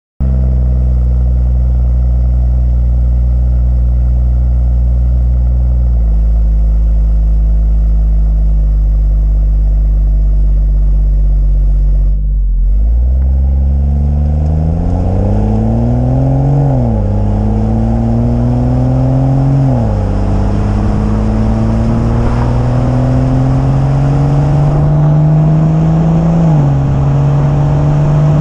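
BMW M140i xDrive's turbocharged 3.0-litre straight-six engine, stock exhaust in sport mode, running at a steady note for about twelve seconds, then pulling away. Its pitch climbs and falls back at three gear changes as the car accelerates up through the gears.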